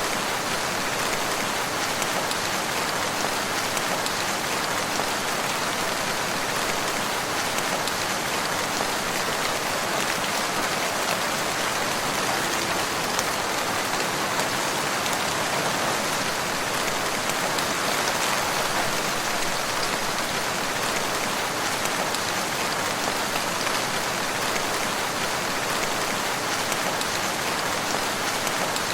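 Steady rain falling, a dense even patter of drops on surfaces with no change in strength.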